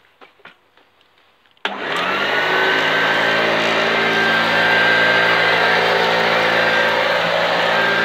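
Hoover U1104 upright vacuum cleaner switched on about two seconds in: its motor comes up to speed with a whine that rises quickly, then settles and runs steadily. The motor sounds nice and healthy.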